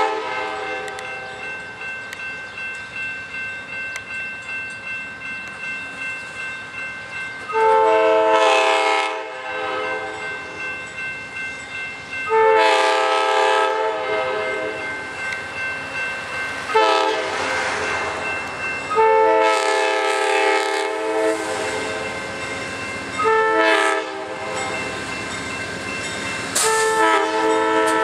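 An Amtrak P42DC locomotive's air horn sounds about five chord blasts, mostly long with one short, as the train approaches grade crossings. Between the blasts the wheels clatter rhythmically over the rails, about two beats a second.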